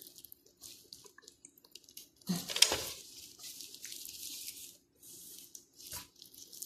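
Plastic-gloved hands rubbing wet marinade over a raw whole chicken: repeated crinkling and squelching strokes, with one louder burst about two and a half seconds in.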